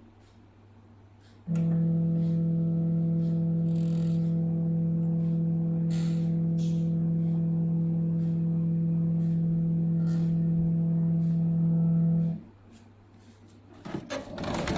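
Cetus 55-litre compressor dehumidifier running with a steady, even hum that starts abruptly about a second and a half in and cuts off abruptly about twelve seconds in. It is followed near the end by a rustling, handling noise.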